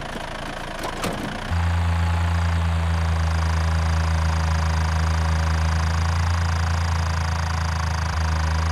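Tractor engine sound effect running, stepping up about a second and a half in to a louder, steady low drone. The tractor is running smoothly after its repair.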